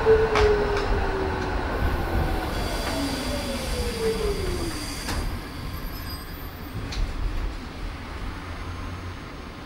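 Esslingen GT4 articulated tram heard from inside the passenger compartment: low running rumble with a whine that falls in pitch several times as the tram slows, plus a few light clicks and knocks. The running noise fades toward the end.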